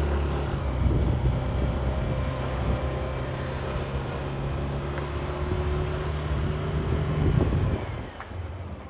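Yamaha scooter engine running steadily as it rides along at low speed. Near the end the engine note fades away as the throttle eases off.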